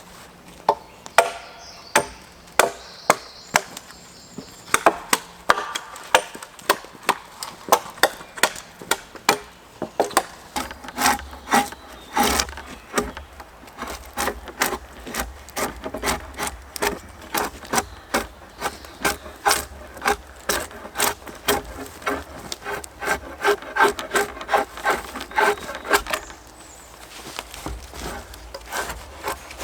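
Hand tools working wood: a long run of sharp knocks on timber, about two to three a second, with a short pause near the end.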